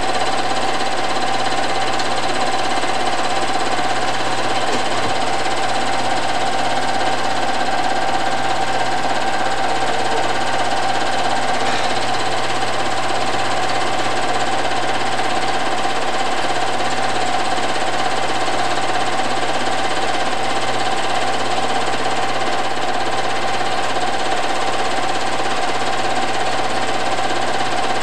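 Film projector running steadily: an unbroken mechanical whirr with a constant hum, the sound of old silent home-movie film being run through the projector.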